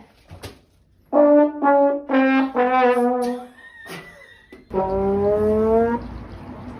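Trombone-style brass sound effect: four notes, each a little lower than the last, then a longer low note near the end, like a comic "wah-wah" fail sound.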